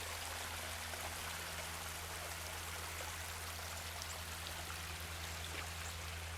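Creek water flowing steadily.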